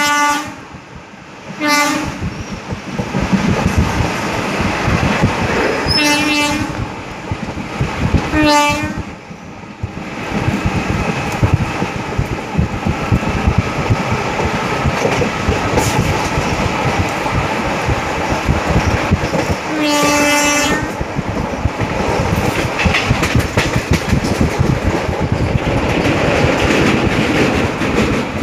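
Indian Railways express train running, heard from inside a coach: the horn blows four short blasts, about 2, 6, 9 and 20 seconds in, over the steady rattle and clickety-clack of wheels on the rails. The rattle grows louder after about ten seconds.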